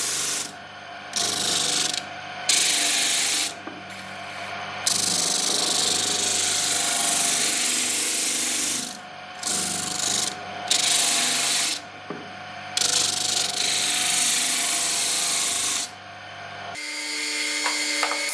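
Sanding disc mounted on the shaft of a bare electric motor, running with a steady hum while a small wooden block is pressed against it in repeated bouts of loud rasping hiss, each lasting one to four seconds. Near the end the motor hum drops away.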